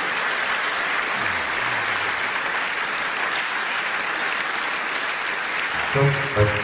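Large theatre audience applauding steadily. Near the end, music comes in.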